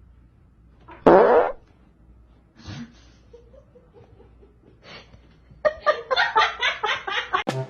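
A short, loud fart-like sound about a second in, then a rapid run of short repeated sounds from about five and a half seconds.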